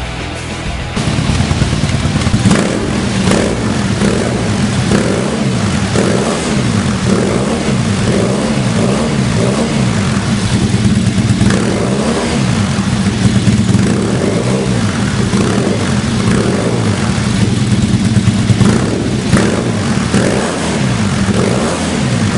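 Yamaha XTZ 750 Super Tenere's parallel-twin engine revved again and again through a stainless Krieger slip-on silencer, the pitch rising and falling with each throttle blip.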